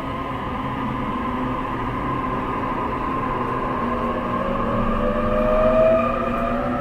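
E531-series electric train heard from inside the passenger car, accelerating: the traction motors and inverter whine in tones that climb steadily in pitch over the rumble of the wheels on the rails.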